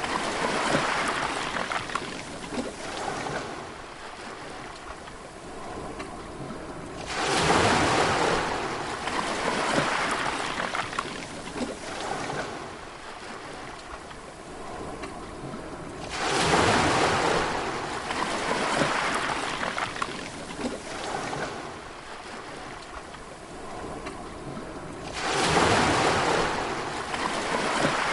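Sea waves breaking on the shore, three in turn about every nine seconds, each rush of surf rising suddenly and then slowly fading.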